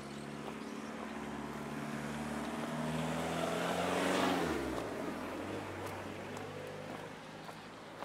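A car driving past: its engine and tyre noise grow louder to a peak about four seconds in, then the engine pitch drops as it passes and the sound fades away.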